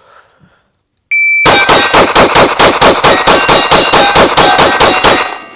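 A shot timer gives one short beep, then a PSA Dagger 9mm pistol is fired as fast as possible in a mag dump: about seventeen shots at roughly four to five a second, stopping abruptly near the end as the magazine runs empty.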